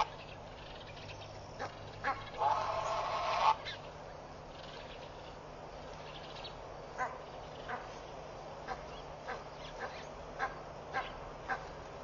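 Egyptian goose honking: one harsh call lasting about a second, a little over two seconds in, then a run of about nine short, sharp calls in the second half.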